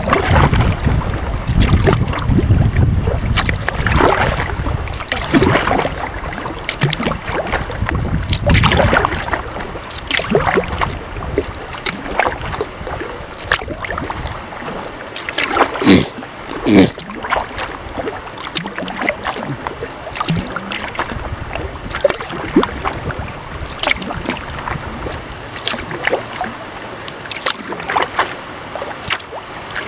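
Kayak paddle strokes dipping and splashing in the water, about one a second, with two louder strokes about halfway through. Wind buffets the microphone during the first several seconds.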